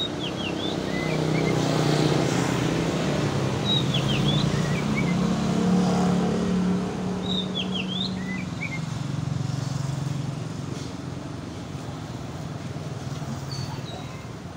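A caged songbird calls a short phrase of quick falling whistles three times, about every four seconds. Under it a passing motor vehicle's engine hum swells in the first half and fades away.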